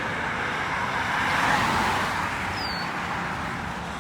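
A vehicle passing on the road, its tyre and engine noise swelling to a peak about halfway through and then fading away.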